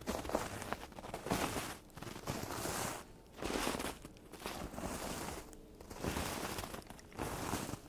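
Footsteps crunching through snow at a steady walking pace, about one step a second.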